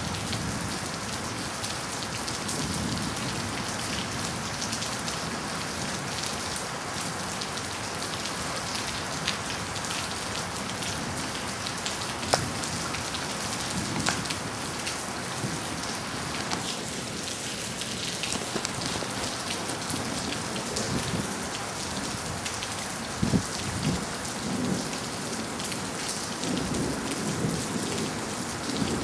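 Heavy rain falling steadily, with a few sharp ticks of drops. Thunder rumbles low several times, mostly in the second half.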